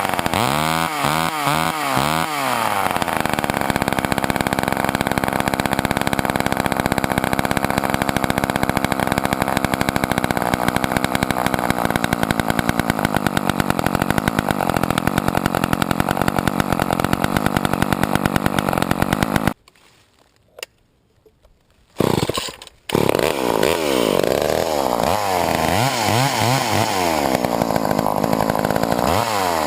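1988 Poulan 2000 two-stroke chainsaw revving in short blips, then held at high revs, cutting wood. About two-thirds through, the sound cuts out suddenly for about three seconds, then the saw comes back with revs rising and falling.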